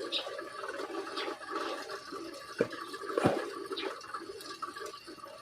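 Small carburetor parts and a tool being handled over a steady background hiss, with two light clicks about halfway through.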